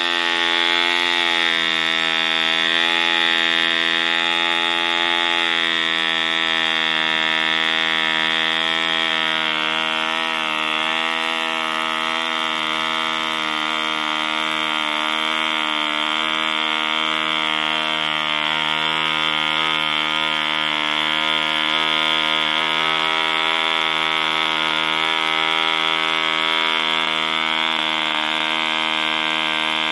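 Mills 1.3 cc single-cylinder two-stroke model diesel engine running steadily at high revs, its propeller spinning, with a steady, even note. The pitch shifts slightly about ten seconds in as the compression screw is trimmed.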